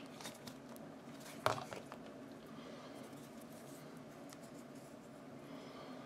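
Fingers handling a small plastic faucet stem and its O-rings: soft scratching and rubbing, with one sharp click about one and a half seconds in.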